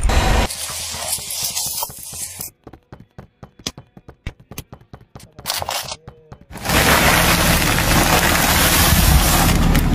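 A car tyre rolling over and crushing objects. First come scattered sharp clicks and crackles as soft gel balls squash under the wheel. About seven seconds in, a loud, dense crunching and crinkling starts as a bag of crisps is flattened.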